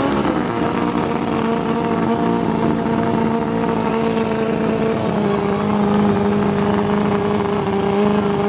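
Drag-racing motorcycle engine held at steady high revs during a burnout at the start line, its rear tyre spinning to heat it before the launch. The note stays level and drops slightly about halfway through.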